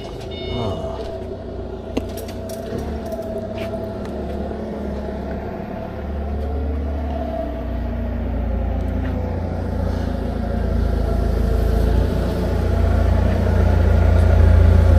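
Motor vehicle engine running with a steady low rumble that grows gradually louder, especially from about six seconds in.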